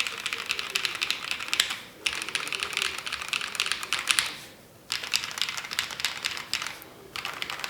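Rapid typing on a custom 60% mechanical keyboard with hand-built linear switches (Wuque LY stems in Gateron Pro housings), a polycarbonate plate and PBT keycaps, in a stacked acrylic case: dense clacking keystrokes in runs of about two seconds with brief pauses between.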